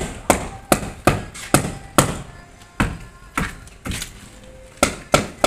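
Hand hammer striking the edge of a lightweight aerated concrete (hebel) block to trim it in place: sharp blows about two a second, about a dozen in all, with a short pause a little after the middle.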